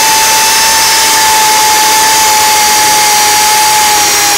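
Handheld electric drill running at full speed, boring into wood: a steady high whine with hiss over it that sags slightly in pitch near the end.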